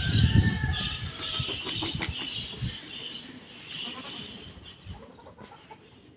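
Chickens flapping their wings as they burst out of the coop, loudest in the first second, then fading as the birds run off.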